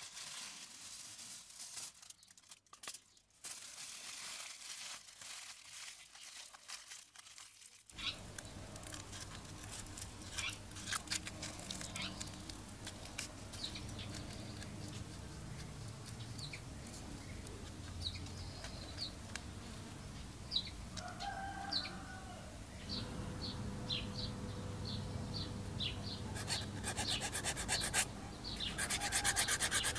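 Aluminium foil crinkling as it is crumpled and folded by hand, with chickens clucking in the background. A fast, rasping scratch comes near the end.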